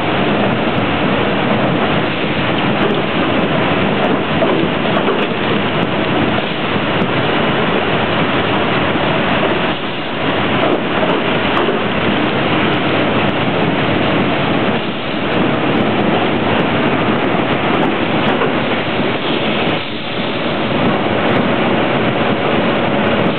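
Loud, steady din of corrugated-board conveyors and stacker machinery running, dipping briefly about every five seconds, with a faint steady whine joining near the end.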